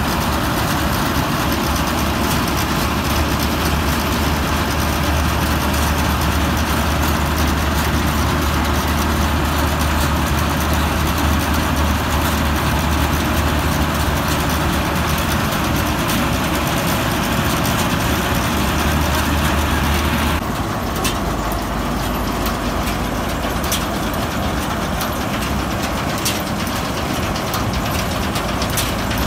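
New Holland TC5.30 combine harvester's diesel engine running steadily with a deep hum. About two-thirds of the way in the sound changes abruptly, the hum dropping slightly in pitch and level.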